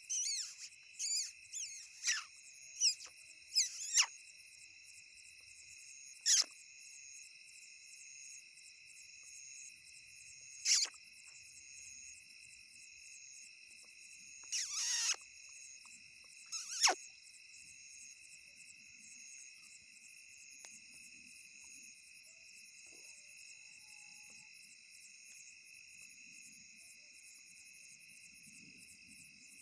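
Crickets chirring steadily in a night-time chorus. Over it come a handful of short, high squeaks that slide downward in pitch, several in the first few seconds and then a few single ones spaced out over the next dozen seconds.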